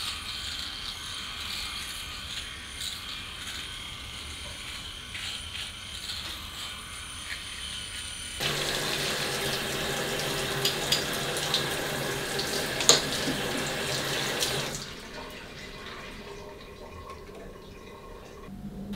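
Water from a bathroom tap running into a sink over a hand. It starts abruptly about eight seconds in and is cut off about six seconds later, with a sharp click while it runs. A fainter steady hiss comes before and after it.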